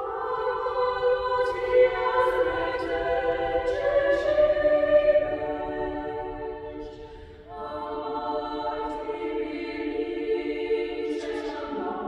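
Mixed chamber choir singing a cappella in held chords, with a few sharp hissing consonants. The sound fades briefly about seven seconds in, then a new chord begins.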